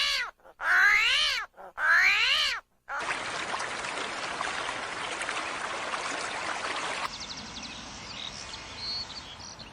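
A cat meowing twice, each call about a second long and rising then falling in pitch. A few seconds of steady hissing noise follow, then faint bird chirps near the end.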